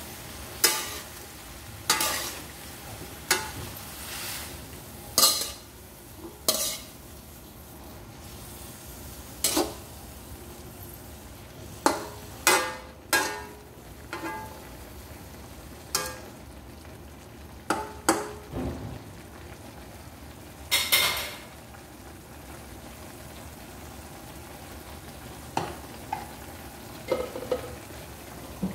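String beans and ground pork frying in a metal wok with a steady sizzle, while a spatula scrapes and knocks against the pan as the beans are stir-fried and tossed. The strokes come about once a second at first, then in a few clusters, and are sparse and soft near the end.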